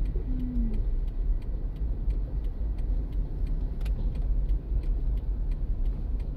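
Steady low rumble of road and drive noise inside a moving car's cabin, with a faint regular ticking about four times a second.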